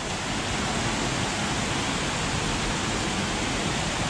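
Steady rush of water falling at a small waterfall, an even hiss with a low rumble beneath.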